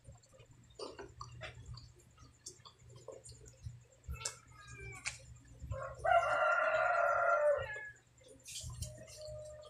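A rooster crows once, a loud drawn-out call of nearly two seconds about six seconds in, with a few shorter calls a second or two before it. Under it are soft clicks and smacks of someone eating with their hands.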